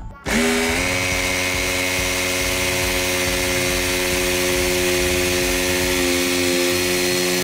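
Electric power tool motor, of the kind used for cutting, spinning up quickly with a rising whine and then running at a steady speed. It cuts off suddenly at the end.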